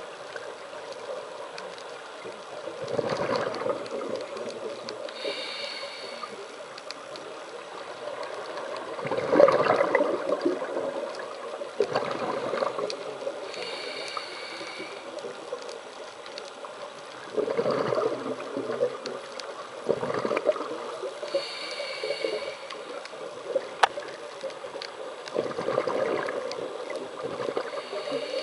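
Scuba diver breathing through a regulator underwater. About every eight seconds comes a hissing inhale with a thin whistle in it, then bursts of exhaled bubbles, over a steady background hiss of water.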